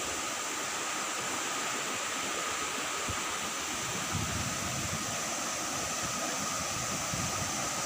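Water of a rocky stream running steadily over boulders, with a few low bumps about halfway through and near the end.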